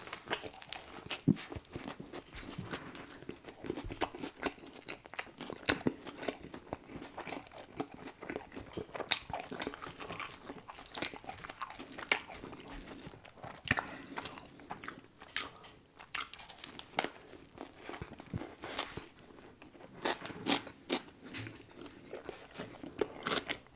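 Close-miked eating of a fried chicken sandwich: a big bite at the start, then steady chewing with crunching of the fried breading and irregular sharp crackles.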